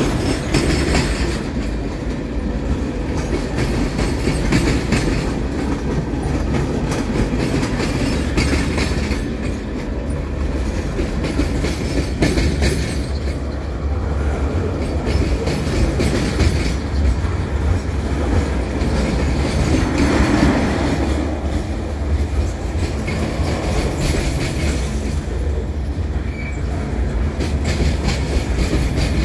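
Freight train of tank cars and covered hopper cars rolling past at close range: a steady rumble of steel wheels, with a constant run of clicks and clatter as the wheels cross the rail joints.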